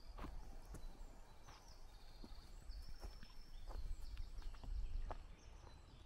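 Footsteps on a forest path, coming regularly, with several songbirds singing short whistled phrases all around. A low rumble swells about four to five seconds in.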